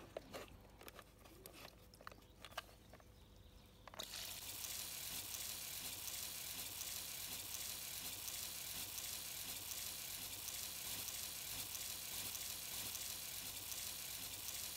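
Light plastic clicks and taps from handling a hose-end feeder and its bowl. About four seconds in, a steady hiss starts suddenly as the feeder's nozzle sprays a jet of water onto the lawn.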